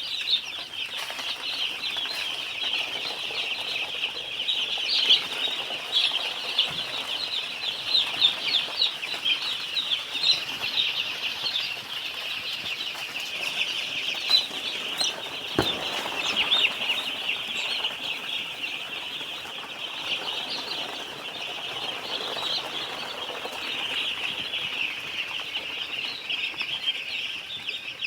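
A large brood of young chicks peeping continuously, many high chirps overlapping into a steady chorus.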